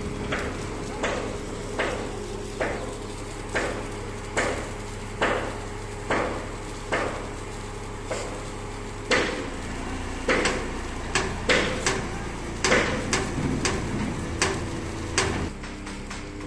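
Repeated hammer blows on metal, about one a second at first and then quicker and more irregular in the second half, over the steady hum of the crane's engine running.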